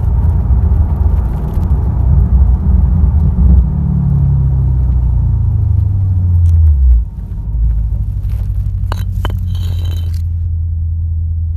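Car engine and road rumble heard from inside the cabin, the engine note falling as the car slows over a few seconds, then a steadier, quieter hum. A couple of sharp clicks about nine seconds in.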